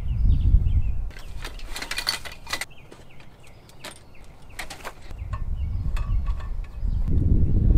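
Clicks and knocks of camping kitchen gear being handled and set out, between stretches of low rumble at the start and again from about five seconds in.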